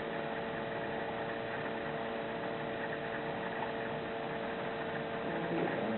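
Steady hum with several constant tones over an even hiss: background electrical or appliance noise.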